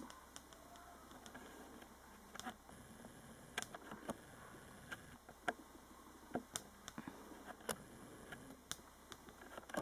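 Faint, irregular clicks and taps of handling noise, about a dozen scattered over a quiet room background.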